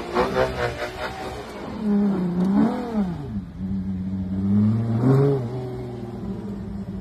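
Ferrari Purosangue's naturally aspirated V12 revving while the car drifts on snow: quick pulsing throttle at first, a rev up and back down about two and a half seconds in, low steady running, then a short blip of throttle about five seconds in.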